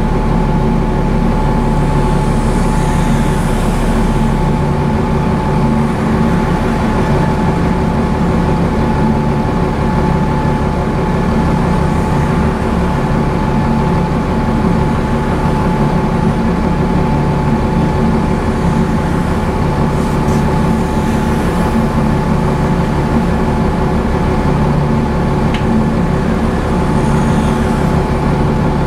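Transbus Trident double-decker's Cummins ISCe diesel and Voith automatic gearbox running at a steady pace, heard from inside the passenger saloon: an even engine drone with a constant whine through it and no change of gear or revs.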